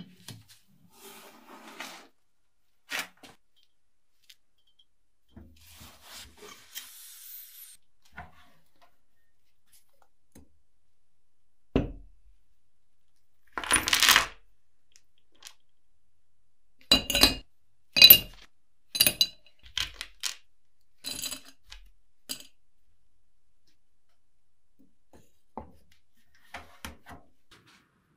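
Metal pieces clinking and tapping against each other and a hard surface. There are scattered light clicks, a short rush of noise past the middle, then a cluster of sharp ringing metallic strikes.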